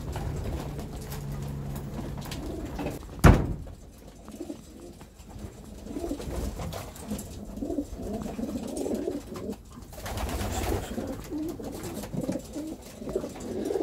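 Racing pigeons cooing in their loft, low repeated coos that fill the second half, with a single sharp knock about three seconds in.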